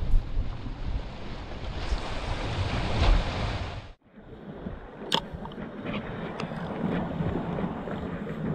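Wind buffeting the microphone over the sound of sea waves washing against rocks. About four seconds in the sound cuts off and comes back quieter, with one sharp click about a second later.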